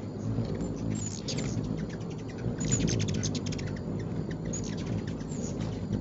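Several ruby-throated hummingbirds with wings humming low and steady, over rapid bursts of high, sharp chittering chip calls as they chase one another. The chatter comes in clusters, densest and loudest about two and a half to three and a half seconds in.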